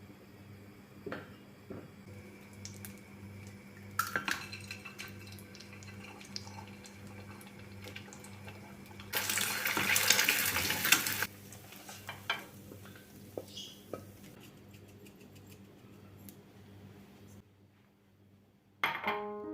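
Washing up at a kitchen sink: a tap runs for about two seconds midway, with dishes and cutlery clinking before and after, over a steady low hum.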